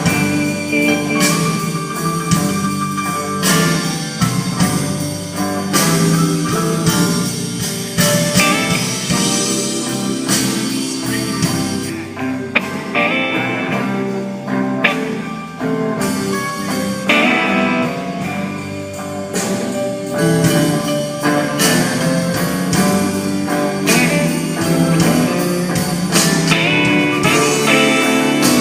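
Blues-rock music played by a band, with guitar to the fore.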